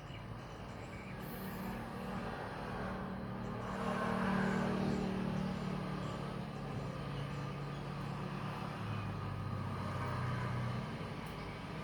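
Engine of a motor vehicle running, a low steady hum that swells about four seconds in and then eases off, like a vehicle passing by.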